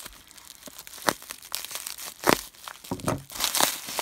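Plastic bubble wrap crinkling and rustling as hands handle and pull at a taped bubble-wrap packet, with a few sharp snaps, the loudest a little over two seconds in, and busier crinkling near the end.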